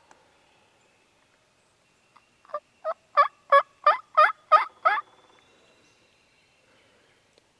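Turkey yelping: a series of about eight evenly spaced yelps, about three a second, starting softly and getting louder, then stopping.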